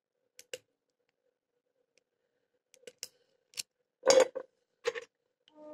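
Lock pick and tension wrench clicking and scraping against the pins inside an old Titan padlock, scattered clicks with the loudest cluster about four seconds in, as the pins keep springing back instead of staying set. A brief metallic ringing near the end.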